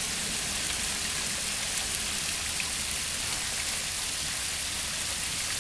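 Water splashing steadily down the cascades of a multi-tier pondless waterfall, an even hiss of falling water.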